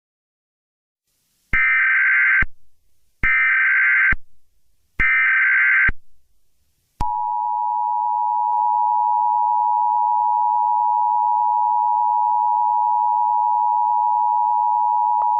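Emergency Alert System SAME header: three short bursts of digital data tones, about a second each, followed by the steady two-tone EAS attention signal held for about eight seconds. The sequence marks the start of a new alert message.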